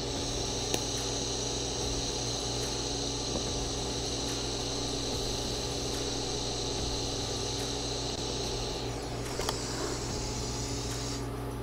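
TIG welding arc hissing steadily while plug-welding a steel rifle receiver, over a steady machine hum. The arc hiss tapers off about nine seconds in, and a fainter higher hiss lingers for about two seconds more before stopping.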